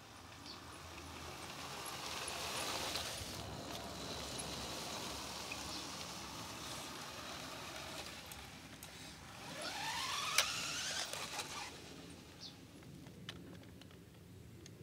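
Vintage Nikko 2WD RC truck's 540 electric motor and gears whirring as it drives across artificial turf. The sound grows louder over the first few seconds. About ten seconds in there is a brief whine rising in pitch, with a sharp click near its top.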